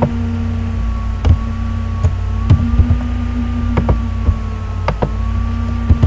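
About ten sharp, irregularly spaced computer mouse and keyboard clicks as a command is copied and pasted into a terminal, over a steady low hum with a fainter higher tone.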